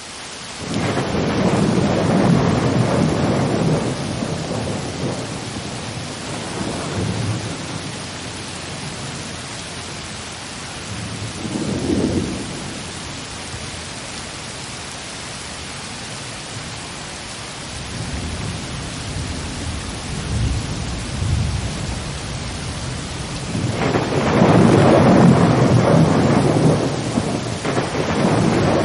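Thunderstorm ambience: steady rain hiss with rolling thunder rumbles that swell several times, strongest about two seconds in and again from about 24 seconds on.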